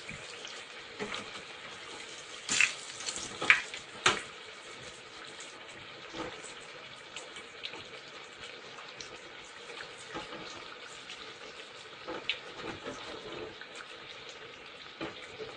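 Flour-coated eggplant slices sizzling steadily in hot oil in an electric deep fryer at 160 °C. Metal tongs click against the fryer several times as the slices are turned, loudest about three to four seconds in.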